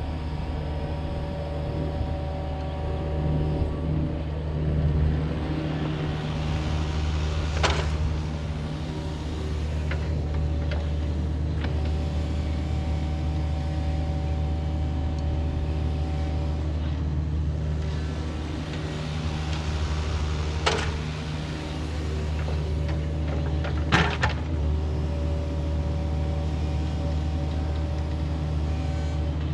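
Kubota KX-71 mini excavator's diesel engine running steadily under work while digging, with three sharp knocks spread through it.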